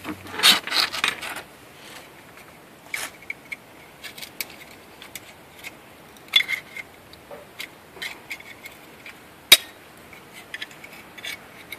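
Scattered small clicks and scrapes of a replacement ignition distributor being handled as its cap's spring clips are pried off, with one louder sharp click late on.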